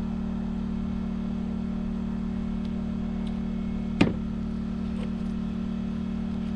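A steady low mechanical hum like a running engine, with one sharp knock about four seconds in.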